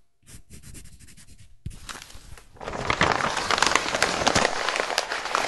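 A run of quick ticks, then a dense crackling and rustling that grows much louder about two and a half seconds in, full of small sharp clicks.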